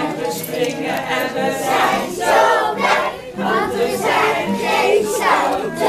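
A group of children and adults singing a song together in chorus.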